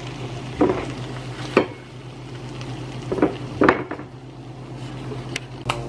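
A cooking utensil knocks and scrapes against a wok and bowl as fried beef tapa is scooped out of the pan, about six separate clacks in all. Under them runs a faint sizzle of the leftover rendered fat, and a steady low hum.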